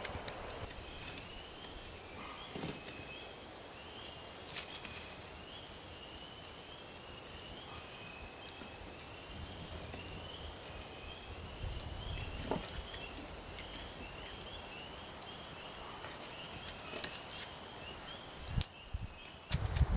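Occasional knocks and scrapes of a stick working the hot coals in a smoking earth-oven pit, over a continuous run of short, high chirping calls.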